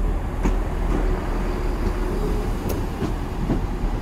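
Southern Class 377 Electrostar electric multiple unit running into the platform and past close by, wheels rumbling over the rails, with a faint steady tone through the middle and a few sharp clicks.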